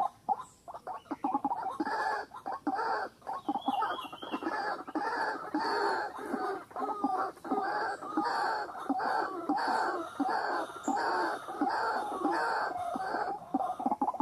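White-breasted waterhen calling: one note repeated over and over at about two a second.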